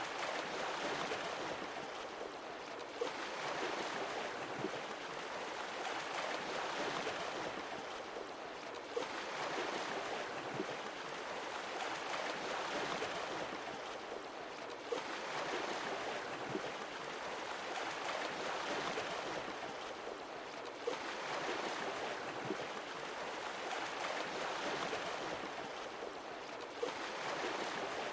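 Sea waves washing in and drawing back in a slow, even rhythm, one swell about every six seconds, each opening with a brief sharp splash.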